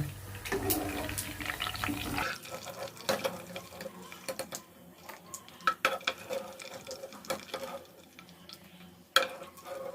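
Metal kitchen utensils clinking and scraping against a pan and bowl, scattered irregular clicks with a sharp one near the end. A faint steady hiss and hum underneath cuts off about two seconds in.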